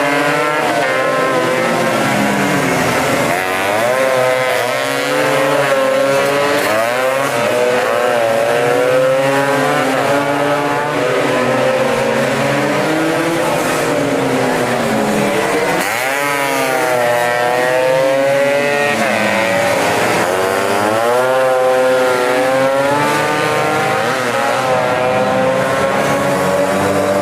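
Several tuned two-stroke racing scooters running hard, their engine notes overlapping and repeatedly rising and falling in pitch as they rev up and back off through the corners.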